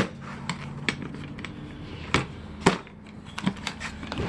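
Scattered sharp clicks and knocks of small items being handled and rummaged through, such as a plastic tackle box of crafting supplies, over a steady low hum.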